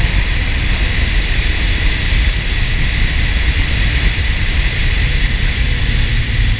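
Steady wind and road noise from a Porsche 968 driving a winding road: a constant rushing hiss over a low rumble, with no clear engine note standing out.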